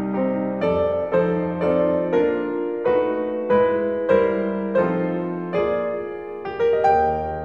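Solo classical piano music: an unhurried melody of single notes, a new note about every half second to second, over held lower notes.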